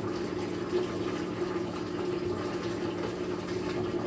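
Washing machine drain pump running with a steady hum, pushing water out into the drain with a continuous rushing, filling sound. The drain seems to be partially clogged and is filling up.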